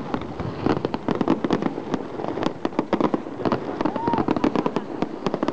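Fireworks display: aerial shells bursting in a rapid, dense string of bangs and crackles with no pauses.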